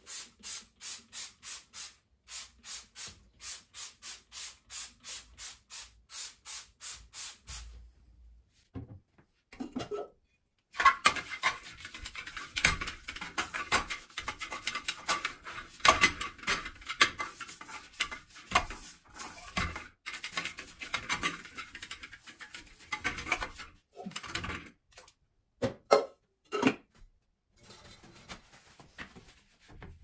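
Toilet cleaner squirted under the rim of a toilet bowl in quick, even pulses, about three a second. Then a toilet brush scrubs the ceramic bowl hard and scratchily for about thirteen seconds, a few knocks follow, and a cloth rubs softly along the rim near the end.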